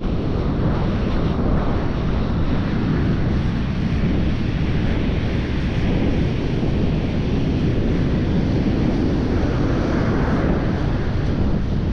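Strong wind buffeting the microphone over the steady rush of surf, with no breaks or distinct events.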